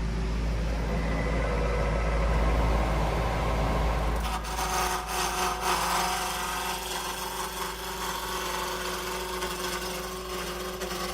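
Woodworking tool cutting into a black locust post, shaping it from square to round. A steady low hum runs through the first few seconds, then a louder, uneven cutting and scraping starts about four seconds in and eases off near the end.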